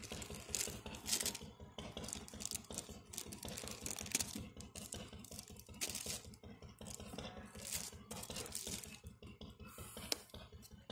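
Cardboard box flaps and plastic laptop packaging rustling and crinkling as they are handled, in irregular short scrapes and crackles.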